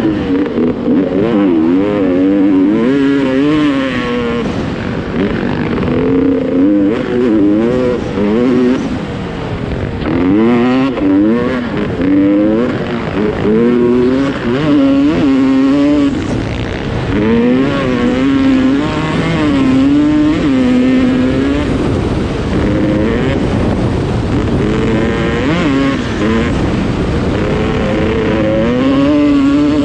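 Dirt bike engine revving as the rider opens and closes the throttle, its pitch climbing and dropping again and again, with short steady stretches in between.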